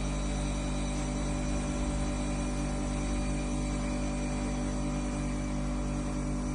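Water-cooled brake disc grinding machine running steadily as it grinds a brake disc: an even hum of several steady tones from its motors and spindles.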